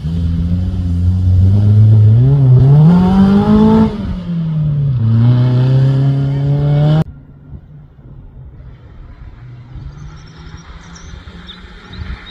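Off-road competition vehicle's engine revving hard with a rising pitch, dipping briefly about four seconds in, then climbing again. The sound cuts off suddenly about seven seconds in, leaving a quieter, steady engine hum from further off.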